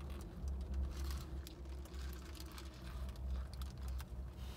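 Quiet eating sounds: a burger being chewed and bitten into, with faint soft ticks and rustles from its paper wrapper, over a low steady rumble.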